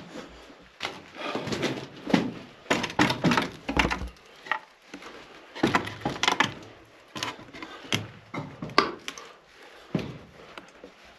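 Irregular knocks, thuds and scrapes of a person clambering down through a mine passage, with feet and hands striking and scuffing against rock.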